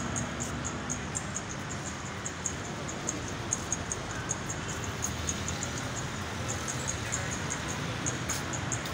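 Street ambience: a steady low rumble of traffic with rapid, irregular high-pitched chirps running through it.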